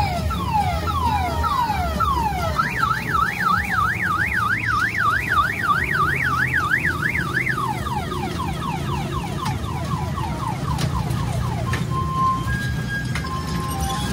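Electronic car-alarm-style siren cycling through its tones. It starts with repeated falling whoops, then a fast up-and-down warble for about five seconds, then quicker falling whoops, and near the end steady beeps alternating between two pitches. A low steady hum runs underneath.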